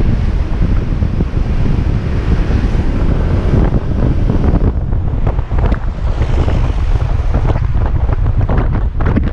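Wind buffeting the microphone of a Kymco Xciting 250i maxi-scooter riding at speed: a loud, steady rush, its upper hiss thinning a little about halfway through.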